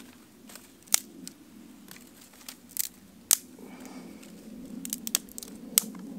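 Small dry twigs snapped by hand for fire kindling: several sharp snaps a second or two apart, with rustling of sticks between them.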